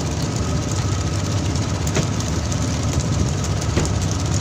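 Fishing boat's engine running steadily under a hiss of spraying and splashing water, with two sharp knocks, about two seconds in and near the end.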